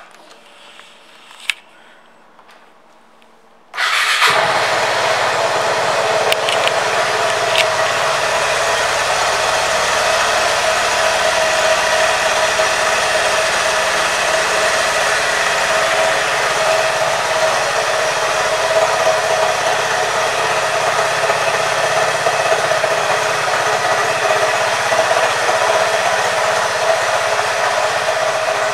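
2021 Vespa Primavera 150 scooter's single-cylinder four-stroke engine starting abruptly about four seconds in, after a few faint clicks, then idling steadily.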